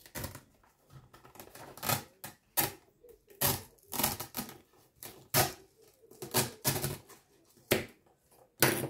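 Utility knife slicing through the paper and glue at the spine hinge of a hardcover book as the text block is cut free from its cover. It sounds as a run of irregular, sharp scraping strokes, some fifteen in all.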